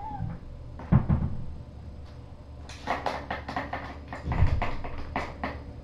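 Kitten pawing at a plastic ball-track cat toy: a sharp knock about a second in, then a run of quick plastic clicks and rattles, about four or five a second, with a dull thump in the middle of them.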